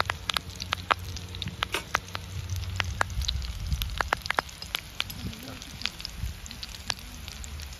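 Chicken kabab cutlets shallow-frying in hot oil: a steady sizzle with frequent sharp pops and crackles, over a low steady rumble.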